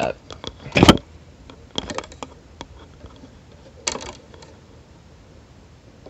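Microphone handling noise as the mic's cable is moved: a loud bump just under a second in, a cluster of clicks and rustles about two seconds in, and another knock about four seconds in.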